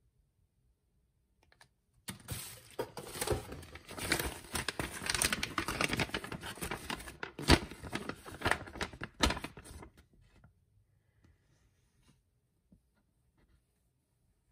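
Plastic and paper packaging crinkling and rustling as it is handled, dense with sharp crackles, for about eight seconds before stopping suddenly.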